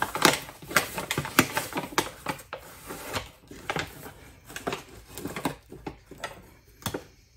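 Paper flour bag crinkling and rustling while a metal measuring cup digs and scoops flour inside it, with irregular scraping and tapping.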